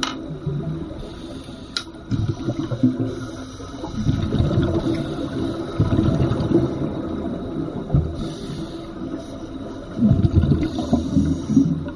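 Scuba breathing heard underwater: exhaled bubbles from a regulator rumbling and gurgling in surges every couple of seconds, with two sharp clicks in the first two seconds.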